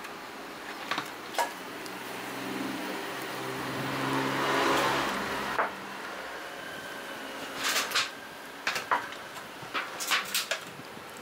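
Wooden chopsticks clicking and scraping on a ceramic plate: a few sharp taps early on, then clusters of clicks in the second half. Under them, a background hum, like passing traffic, swells and then cuts off abruptly about halfway through.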